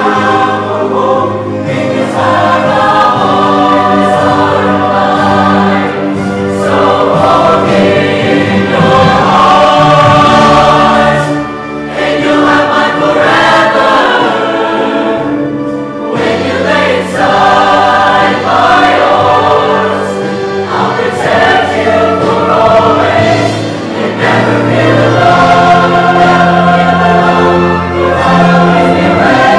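Mixed show choir of male and female voices singing a song in harmony, loud and continuous, with brief dips between phrases about twelve and sixteen seconds in.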